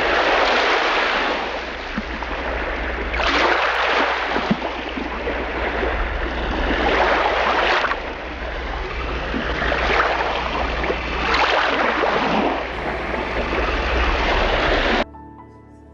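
Sea waves breaking, the rushing surf swelling and easing about every four seconds over a steady low rumble. It cuts off suddenly near the end.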